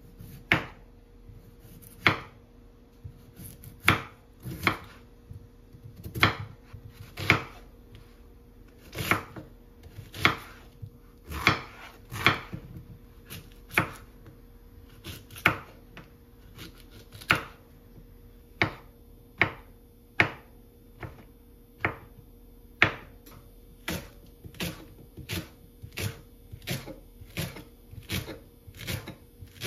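Kitchen knife chopping onion, zucchini and shiitake mushrooms on a wooden cutting board: separate sharp knocks of the blade on the board, about one a second, coming faster, about two a second, in the last few seconds. A faint steady hum runs underneath.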